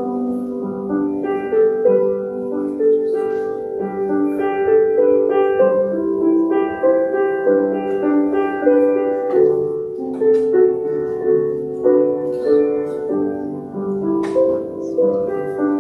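Instrumental music played on a keyboard instrument: a gentle flowing melody over held chords, notes changing about twice a second, with no singing.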